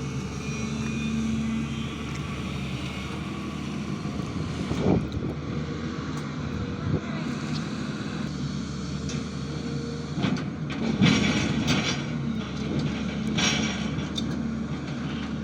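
SANY excavator's diesel engine running steadily, with several sharp knocks and scrapes of the machine at work about a third of the way in, around two thirds of the way in, and near the end.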